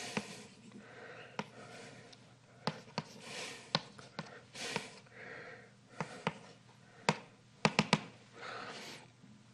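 Chalk drawing on a blackboard: short scraping strokes broken by sharp taps, with a quick run of three taps near the end.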